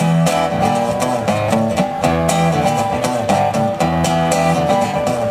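Instrumental break of a live country-style band: strummed guitar with bass, no singing.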